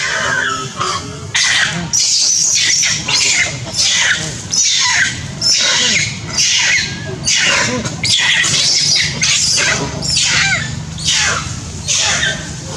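Long-tailed macaque screaming in distress while another macaque pins and bites it: loud, shrill cries about twice a second, each sliding down in pitch.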